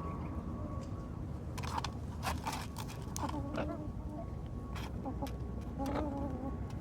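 Hens giving a few short, wavering clucking calls, one pair about halfway through and another near the end, over a steady low rumble. A handful of sharp clicks come in the first half.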